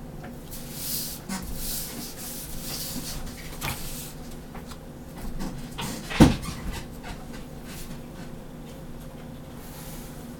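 Pen tip scratching across paper as straight lines are drawn along a ruler, several short strokes in the first few seconds and more later on. A single sharp knock about six seconds in is the loudest sound.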